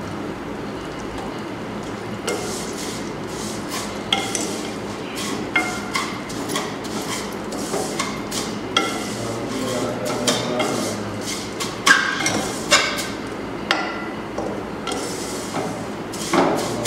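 Metal spoon stirring vermicelli roasting in ghee in a steel wok: irregular clinks and scrapes of metal on metal, starting about two seconds in, over a steady low hiss.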